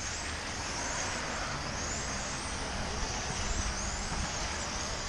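1/10-scale electric RC touring cars racing: the high whine of their brushless motors and drivetrains rises several times as cars accelerate out of corners, over a steady low rumble.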